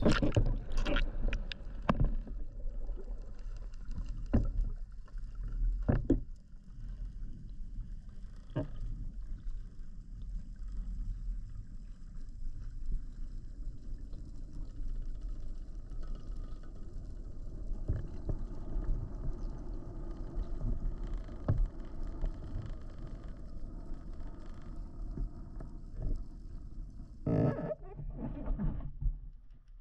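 Underwater sound picked up by a speargun-mounted camera on a freedive: a steady, muffled low rumble of water. Scattered clicks and knocks, several in the first few seconds, and a brief louder rush a couple of seconds before the end.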